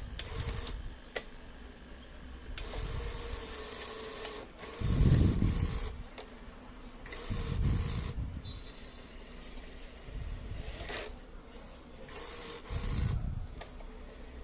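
Tape transport of a Sharp VT-1480D combo's video recorder, with newly replaced rubber belts, being tested in fast-forward and rewind. The reel drive whines in spells of a second or two, with low thuds and a few clicks in between as the mechanism shifts.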